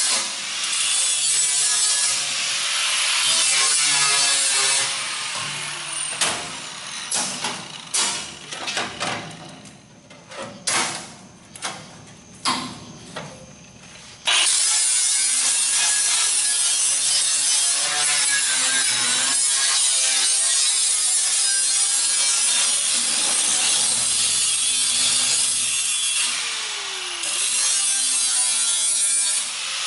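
Angle grinder cutting steel plate, a loud steady grinding. It stops about six seconds in, several sharp knocks follow, and the grinder starts again abruptly about halfway through and keeps cutting.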